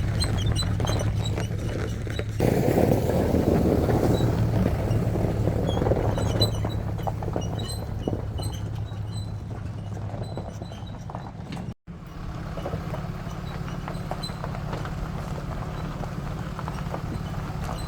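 Ram 2500 pickup truck driving on a snowy back road, with a steady low engine and road drone and a scatter of small ticks and rattles. The sound cuts out for an instant about two-thirds of the way through.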